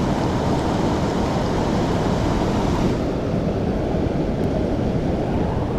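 Steady rush of water pouring through a spillway, an even noise with no pauses; the higher hiss thins out about three seconds in.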